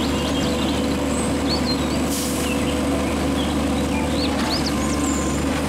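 Front-loader garbage truck's engine running steadily while its hydraulic arms lift a dumpster up over the cab, with birds chirping throughout.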